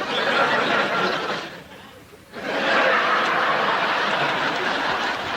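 Studio audience laughing after a punchline, in two swells: the first dies down about a second and a half in, and a second, louder wave rises about two and a half seconds in and carries on.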